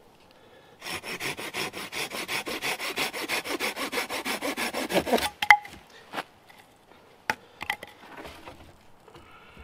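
A Silky Gomboy folding saw cutting through a thin stick of wood in quick, even back-and-forth strokes for about four seconds. The strokes end about five seconds in with a sharp crack, followed by a few light knocks of wood.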